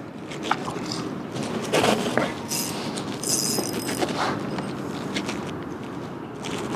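A jig being retrieved on a spinning reel: several short bursts of reel cranking and rod-and-line handling over a steady low wash.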